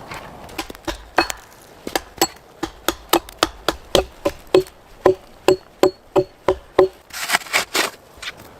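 Rapid knocking, about three to four sharp knocks a second, each with a short ringing tone, like a tool striking wood; near the end it gives way to a brief scraping or crunching noise.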